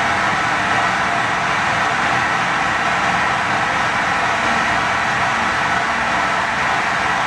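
Harsh noise music played live on electronics: a loud, dense, unbroken wall of distorted noise, strongest in the upper middle range, with a rough low rumble beneath and no rhythm or pause.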